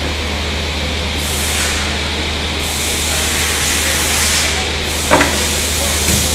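CNC woodworking machine running, with a steady low hum under several drawn-out stretches of hissing noise and a single sharp knock about five seconds in.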